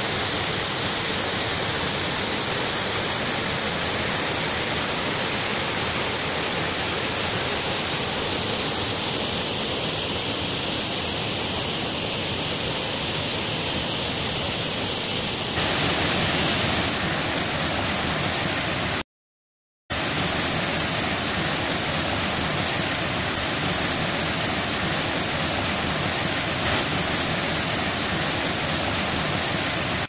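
Waterfall pouring onto rock, a steady rush of falling water. The sound shifts slightly about halfway through and drops out for under a second just after.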